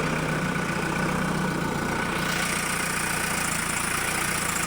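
Backhoe loader's diesel engine running steadily at idle, with a faint high whine joining about halfway through.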